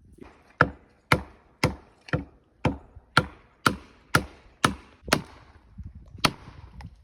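Felling wedges being hammered into a tree's cut: about ten sharp strikes at roughly two a second, then a short pause and one more strike. The wedges are being driven to tip over a tree that will not go.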